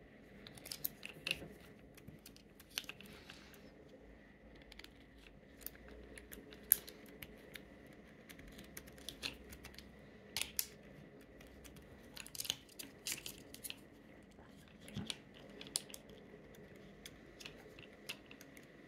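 Fingers handling 35 mm film in the open body of a Canon FX camera: irregular small clicks, taps and scrapes as the film leader is threaded onto the take-up spool.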